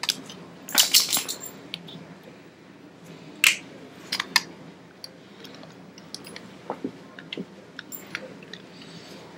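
Plastic parts of a Masterpiece Grimlock transforming robot figure clicking and knocking as its arms and fists are moved by hand. Scattered sharp clicks, with small clusters about a second in, around three and a half seconds, and just after four seconds.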